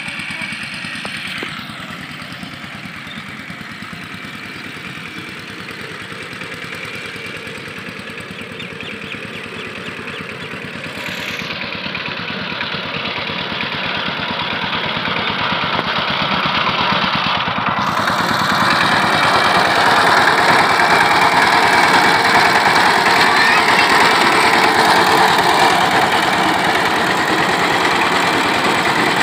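Two-wheel power tiller's single-cylinder diesel engine running steadily under load while rotary tilling, with a rapid, even firing beat. It grows louder through the middle of the clip and stays loud near the end.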